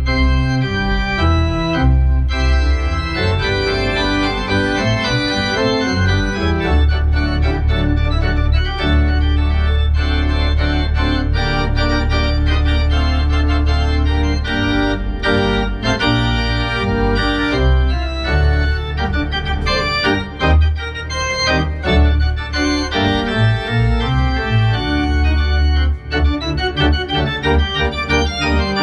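Two-manual organ with pedalboard played solo: sustained chords and moving lines on the manuals over deep bass notes.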